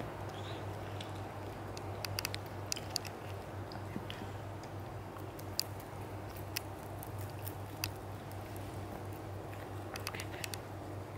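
Rabbit nibbling leafy green stems: clusters of small crisp clicks and crunches, over a steady low hum.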